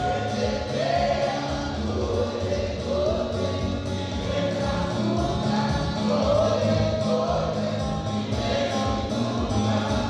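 Gospel choir singing with instrumental accompaniment.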